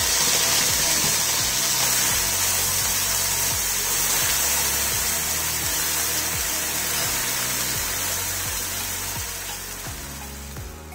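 Wet ground masala paste of onion, garlic, tomato, cumin and chilli frying in hot oil in a kadai: a loud hissing sizzle that slowly dies down as the water in the paste cooks off.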